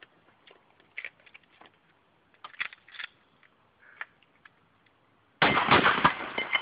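A few light clicks and knocks, then a single shotgun blast about five seconds in, loud and sudden, with its noise lingering for about a second before fading.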